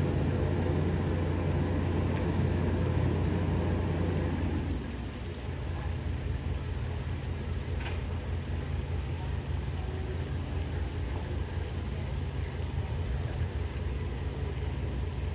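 Tour boat's engine running at low speed, a steady low rumble that drops in level about four and a half seconds in and carries on more quietly.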